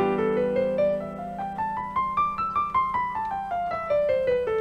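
Digital keyboard playing an E minor 7 chord held in the low register while the right hand runs an E Phrygian scale, stepping evenly up about two octaves to a peak about halfway through and then back down.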